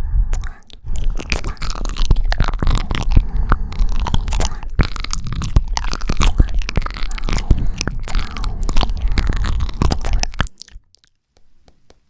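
Close-miked ASMR kissing and sucking mouth sounds: a dense run of wet lip smacks and clicks over breath on the microphone, stopping suddenly about ten and a half seconds in.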